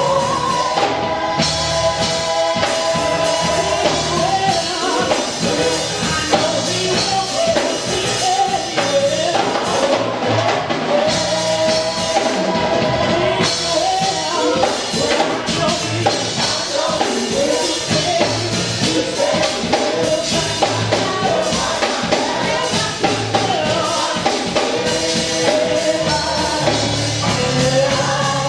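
Gospel praise team of several voices singing together into handheld microphones, over band accompaniment with drums.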